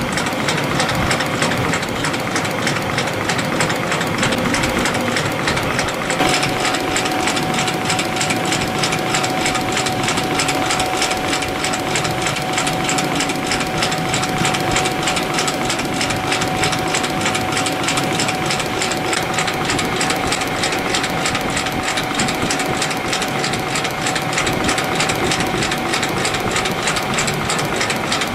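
YHM CF-310 CNC compression spring coiling machine running steadily, a rapid even mechanical clatter as it coils 0.2 mm wire into springs cycle after cycle. A steady whine joins about six seconds in and holds.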